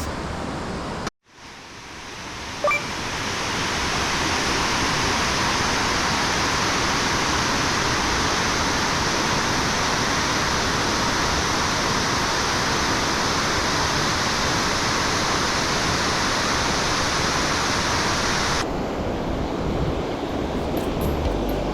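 Waterfall water rushing as a steady, dense hiss. It cuts out briefly about a second in, swells back, and turns duller near the end.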